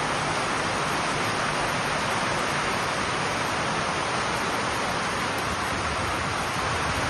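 Steady, even rush of water with no breaks or changes, the sound of heavy rain or flowing floodwater.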